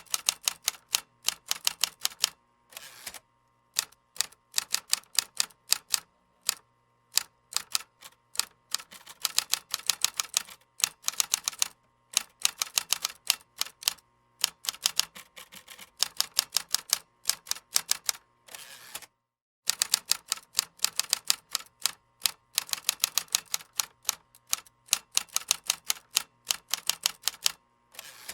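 Typing on a computer keyboard: fast runs of key clicks, broken by short pauses.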